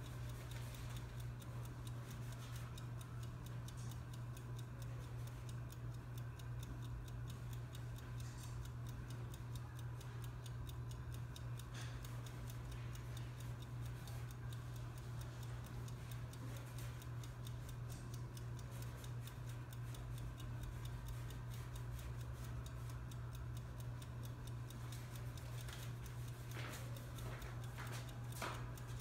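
Room tone: a steady low hum with fast, faint ticking, and a few brief scratchy sounds near the end.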